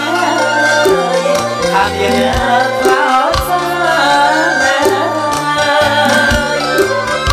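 Bassac opera ensemble music: drums keep a steady beat under held bass notes and a wavering melody line.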